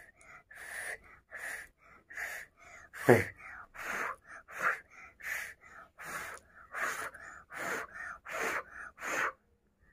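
A child blowing short puffs of breath, about a dozen of them, roughly one every 0.7 seconds. One puff about three seconds in is louder, with a bit of voice in it.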